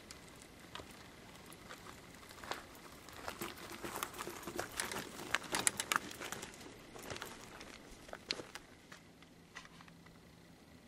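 Footsteps crunching over dry pine needles and gravel while a mountain bike is wheeled across the ground. The crackling comes unevenly and is loudest about five to six seconds in.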